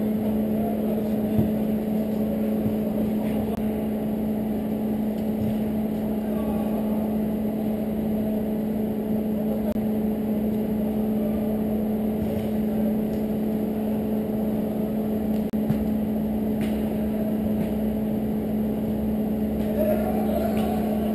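A steady, even machine hum with a constant low tone, and a few faint knocks.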